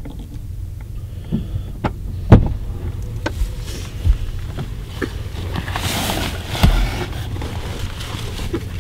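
Hunting gear being handled in a pickup truck's back seat: scattered knocks and clicks, the loudest about two and a half seconds in, and a spell of rustling a little past the middle, over a steady low hum.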